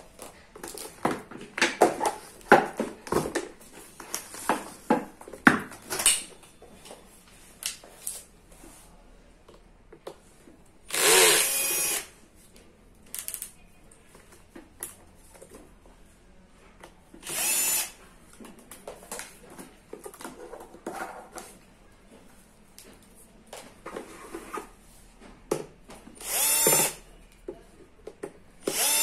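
Cordless drill-driver working the screws of a battery charger's metal case, running in short bursts of about a second, three times, with another starting at the very end. Between the runs, and most of all in the first several seconds, there are scattered clicks and knocks.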